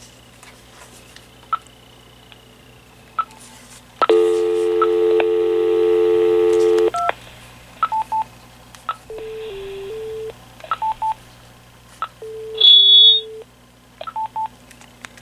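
Vtech 5.8 GHz cordless phone handset tones: a steady dial tone for about three seconds, starting about four seconds in, then short button beeps and twice a brief three-note low tone pattern, the second with a loud high beep over it. Small clicks of keys being pressed sit between the tones.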